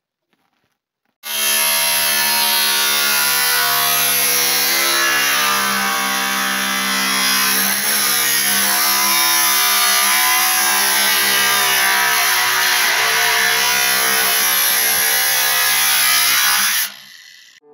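Cordless angle grinder with a cutting disc cutting through a sheet of corrugated iron. It starts about a second in, runs loud and steady with a motor hum under a high metallic hiss, and stops shortly before the end.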